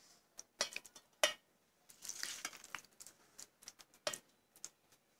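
A spoon scooping the cooked, cooled gongura, brinjal and tomato mixture out of a kadai into a mixer jar: scattered clicks and taps of the spoon on metal, with a short scraping stretch about two seconds in.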